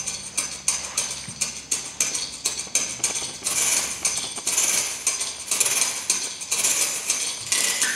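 Percussion break in the dance music: a fast, even clatter of sharp wooden clicks with a rattling hiss and no melody.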